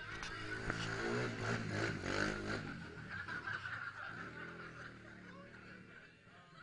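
People laughing, loudest in the first two and a half seconds and trailing off, over a steady low engine hum.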